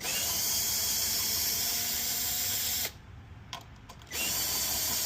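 Handheld power drill/driver running in two steady bursts, backing out a threadlocked bolt. The first run lasts about three seconds, and the second starts after a short pause about four seconds in.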